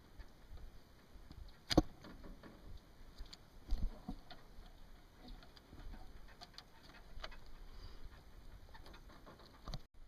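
Quiet handling of a power cable and its copper crimp lug: a sharp click about two seconds in, a dull knock near four seconds, and scattered light ticks.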